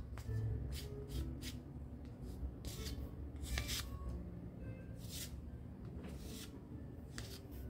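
A plastic putty scraper spreading and smoothing wall filler paste into a hole in a painted wall: about nine short scraping swipes, one every half second to a second and a half.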